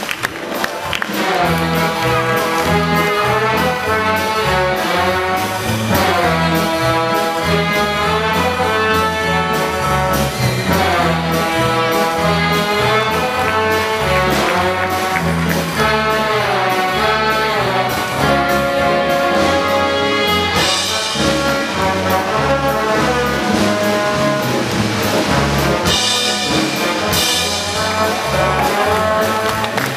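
Circus band music led by brass, trumpets and trombones, over a steady beat.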